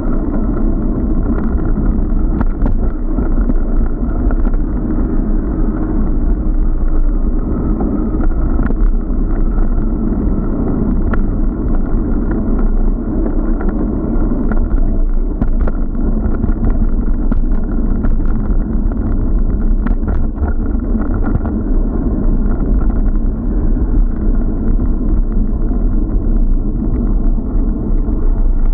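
Steady, muffled rush of wind and vibration on a bike-mounted action camera's microphone, with the rumble of tyres rolling over paving and scattered small knocks and rattles from bumps.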